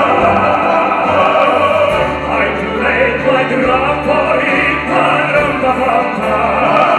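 Male vocal trio singing in operatic style, holding long notes with vibrato, over a live band with a steady bass line.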